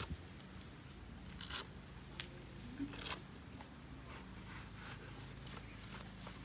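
Canvas roll-up awning on a pickup's roof rack being unpacked and unrolled by hand: a few short, sharp rustling strokes in the first three seconds, then quieter handling of the canvas.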